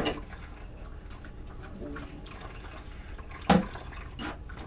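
Dishes being washed by hand at a kitchen sink: faint water and sponge sounds, with a sharp clink of dishware about three and a half seconds in and a lighter one soon after.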